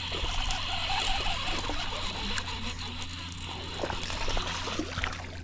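Baitcasting reel cranking as a hooked bass is reeled in toward the boat, with a brief splash of the fish at the surface about four seconds in. Under it runs a steady low hum and hiss.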